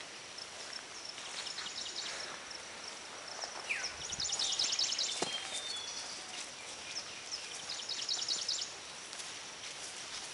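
Forest ambience: a steady high-pitched hum, with two bursts of rapid high trilling calls, about four seconds in and again near eight seconds. A short falling whistle comes just before the first burst.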